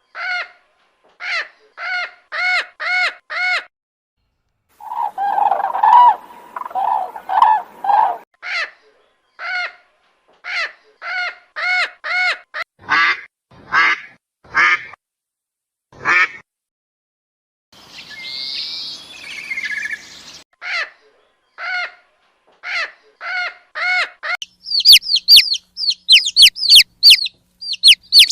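Calls from several different birds, played one after another with silent gaps between: mostly short, loud calls repeated in runs, ending in a quick series of high chirps.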